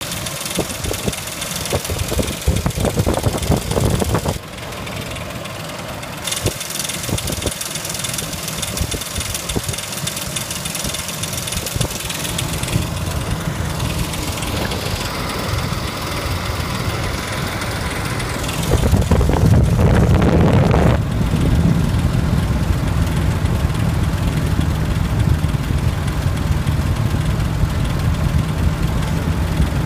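A 2004 Ford Explorer engine running with a fast ticking rattle from a failing timing chain tensioner, growing louder for a couple of seconds about two-thirds of the way through.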